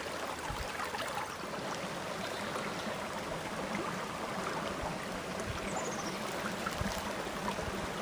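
Small, shallow mountain stream running steadily over stones.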